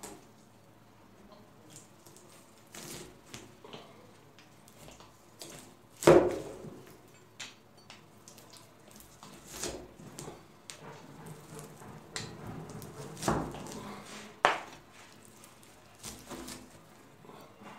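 A large cleaver chopping down through a slab of whole nuts set on date paste in a metal tray: irregular knocks, crunches and scrapes as the blade meets the nuts and the tray bottom. The loudest knock comes about six seconds in.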